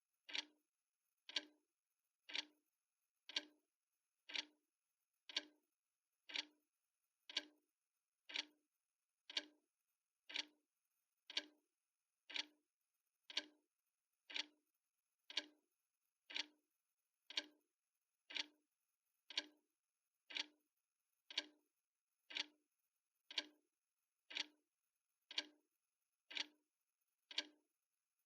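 Clock ticking steadily at one tick a second, each tick a short sharp click.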